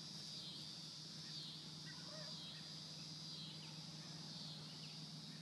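Steady high-pitched insect chorus, like crickets trilling, with a low steady hum underneath and a few faint chirps about two seconds in.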